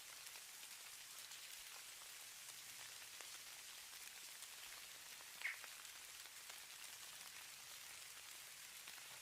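Faint steady hiss of falling snow, dotted with many fine ticks of flakes landing, much like light rain. One brief louder tick about five and a half seconds in.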